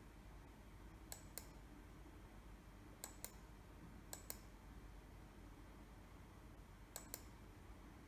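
Computer mouse button double-clicked four times, each a pair of faint sharp clicks in quick succession, over quiet room tone.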